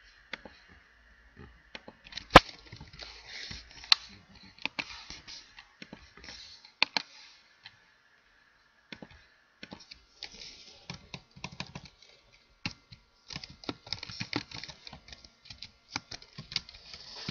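Computer keyboard keys clicking in irregular runs of typing, mixed with mouse clicks; one sharp click about two seconds in is the loudest, and the typing stops for about a second near the middle.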